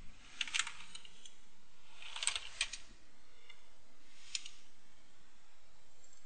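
Computer keyboard typing: three short bursts of key clicks, about two seconds apart, as a command is typed at a terminal prompt.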